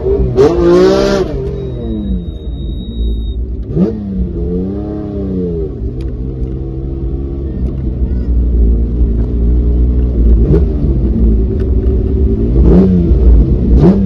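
Lancia Stratos HF Group 4's Ferrari Dino V6 engine heard from inside the cabin, driving slowly with several quick throttle blips whose pitch rises and falls sharply. There is lower, steadier running around the middle.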